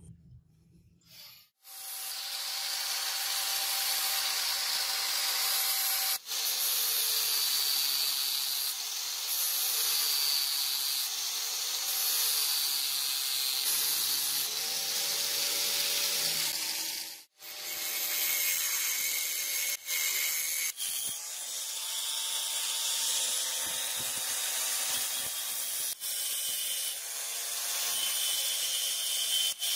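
Angle grinder grinding a rusty steel knife blade: a loud hissing grind over the motor's whine, whose pitch sags and recovers as the disc is pressed onto the steel. It starts about two seconds in and breaks off briefly a few times.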